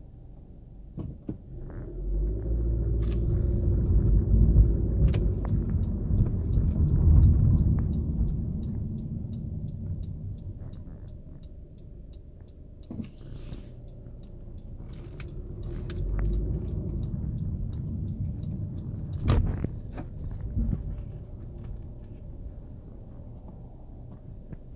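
Honda Civic heard from inside the cabin while driving: a low engine and road rumble that swells for several seconds, eases off, then swells again more briefly. A sharp knock comes about two-thirds of the way in, and there is a run of faint, evenly spaced ticks in the first half.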